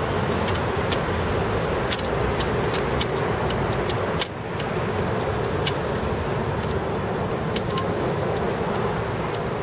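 Diesel road-paving machinery, an asphalt paver and trucks, running steadily, with scattered sharp clicks over the engine noise.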